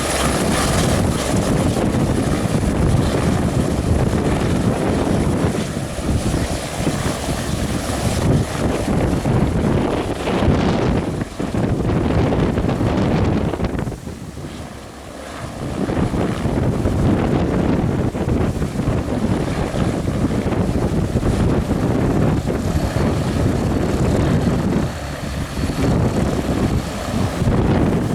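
Aerospatiale AS350B helicopter running close by, its main rotor and single turboshaft turbine sounding through heavy wind buffeting on the microphone. The sound dips briefly about halfway through.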